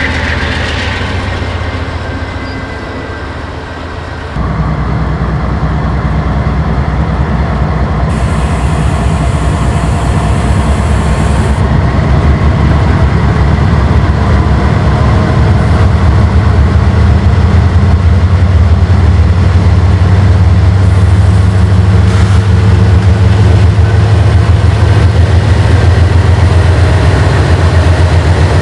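Two GE diesel-electric locomotives, a Canadian Pacific AC4400CW with a 16-cylinder 7FDL and a Union Pacific ES44AC with a 12-cylinder GEVO, throttling up under load. A deep engine rumble grows steadily louder. It is preceded in the first four seconds by a quieter locomotive working away, which cuts off abruptly.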